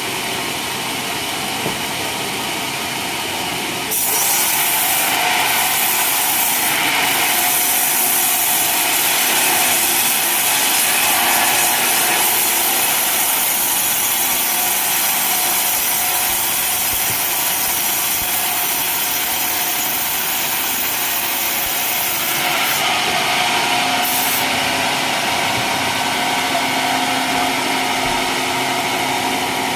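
Sawmill sawing a coconut-palm log. The machine runs steadily, then about four seconds in the blade bites into the wood and a loud, hissing cutting noise sets in, easing toward the end.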